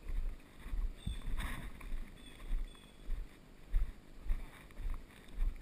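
Footsteps of someone walking at a steady pace on a woodland dirt path, heard as regular low thuds about two a second, each step jolting the camera.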